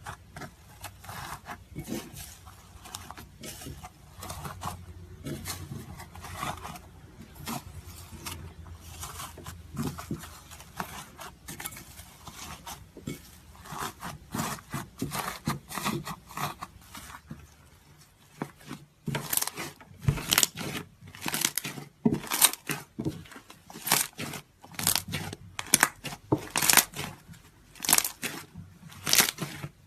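Iceberg slime, with its hardened crust, being pressed and squeezed by hand, giving rapid crackling and crunching. The crackles grow louder and sharper about two-thirds of the way through.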